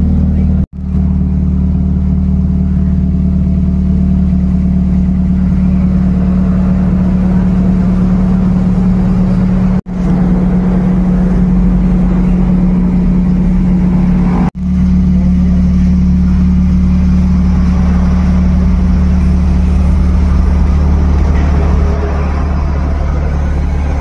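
Toyota Vios exhaust, fitted with a re-elbow pipe and an HKS muffler, idling steadily with a deep, even drone. The sound breaks off for an instant three times.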